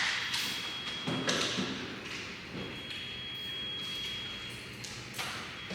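A few dull thuds and knocks, one near the start, one about a second in and one near the end, with a faint thin high tone coming and going.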